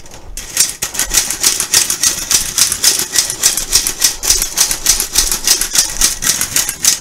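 Hand-operated metal sifter being worked over a pan, its wire agitator rasping against the mesh in rapid, even clicks several times a second as powdered sugar is sifted through.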